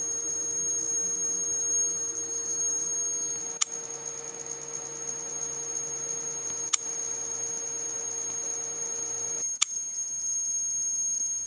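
Steady electrical hum with a high whine from a switchboard, broken by three sharp clicks; with the last click, about nine and a half seconds in, the hum cuts off as the load switches off and its current drops to zero.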